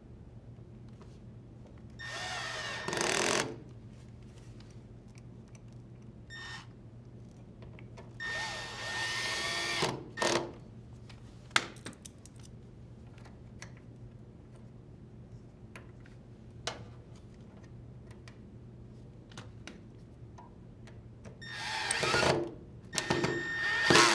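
Drill driver with a Phillips bit whirring in short bursts as it drives screws back in. It runs in about three bursts of one to two seconds each, its whine bending up and down in pitch, with small clicks and knocks between them.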